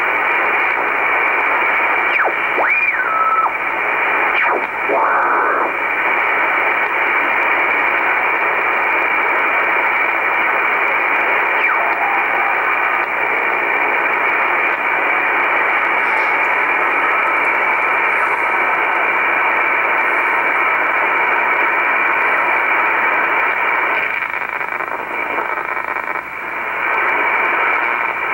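Icom IC-R8500 shortwave receiver's speaker hissing with band static in USB mode as the tuning knob is swept up through the 10 MHz band. A few brief gliding whistles of signals tuned past in the first few seconds, then steady static.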